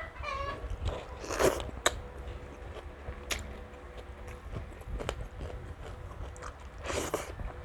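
Close-miked biting and chewing of crispy fried pork belly (lechon kawali), with two loud crunchy bites, about a second and a half in and near the end, and smaller mouth clicks between.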